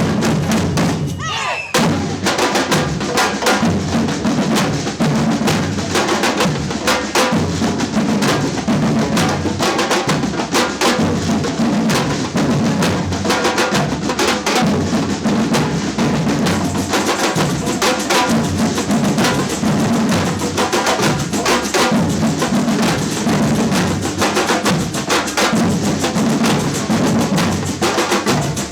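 Samba batucada percussion band playing a dense, driving drum groove of bass drums and snares. It drops out briefly about a second and a half in, then the full band comes back in.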